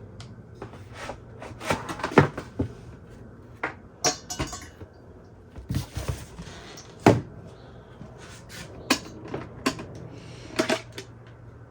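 Knocks, clicks and brief rustles of boxed parts and packaging being handled during unboxing, with the sharpest knocks about two seconds in and about seven seconds in.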